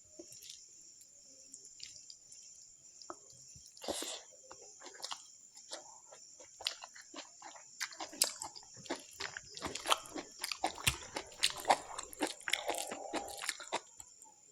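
Close-up mouth sounds of someone chewing and eating pork curry with rice: wet clicks, smacks and squelches, sparse at first and coming thick and fast in the second half.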